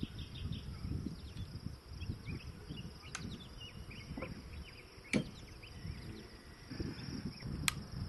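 Low rumble of wind on the microphone with faint high chirping, broken by three sharp clicks, the loudest about five seconds in, as a muzzle-loading gun and its gear are handled at a wooden bench.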